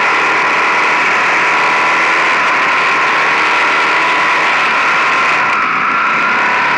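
Motorcycle engine running at a steady cruising speed on the road, with wind and road noise. Heard from a camera mounted low beside the front wheel; the engine note holds steady, rising slightly near the end.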